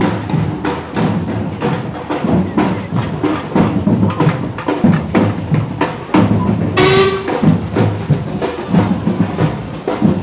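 Band music with a steady drum beat. About seven seconds in, a steam engine's whistle gives one short, shrill blast.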